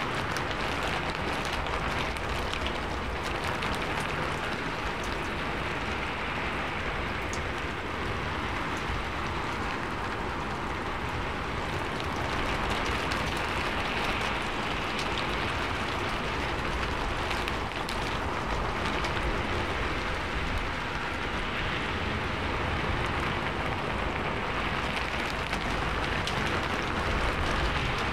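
Heavy rain falling steadily: a dense, even hiss of drops with many small individual drop hits throughout.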